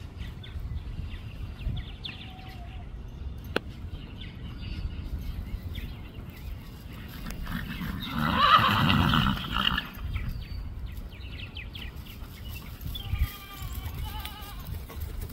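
A horse whinnying once, a call of about two seconds some eight seconds in, the loudest sound here. Fainter animal calls follow a few seconds later.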